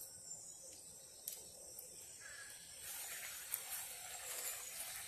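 Faint outdoor garden ambience: a steady high-pitched insect buzz, with a short bird call about two seconds in. From about three seconds in there is a soft rustling.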